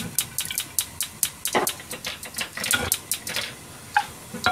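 Soy sauce glugging out of a bottle into a small pan of sake and sugar: a quick, even run of clicks, about six a second, that stops a little after three seconds in. A short clink follows as the pan is taken by its handle.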